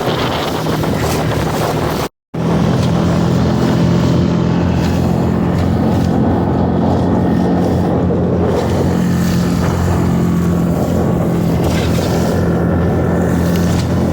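6 hp outboard motor running steadily under way, with wind and water noise around it. The sound drops out completely for a moment about two seconds in.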